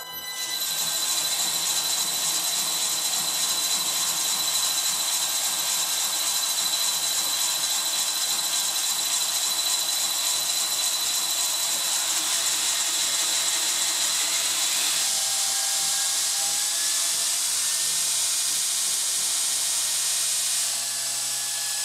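Belt grinder's electric motor, speed-controlled by a variable frequency drive, spinning up from a start and running steadily with a high whine and belt hiss. About two-thirds of the way through its tone shifts, and near the end it drops a little in level as the belt speed is turned down on the drive.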